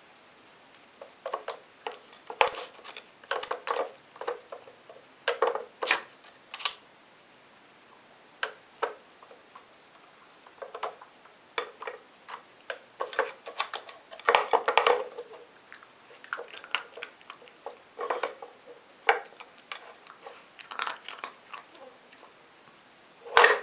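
Wooden dog puzzle toy clacking and knocking as a dog works its sliding covers and levers to get at hidden treats: irregular clusters of sharp wooden clicks and rattles, with a loud knock just before the end.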